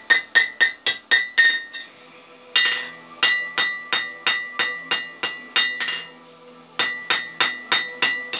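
Hand hammer striking red-hot steel on an anvil, about four blows a second, each with a bright metallic ring. The hammering stops briefly about two seconds in and again about six seconds in.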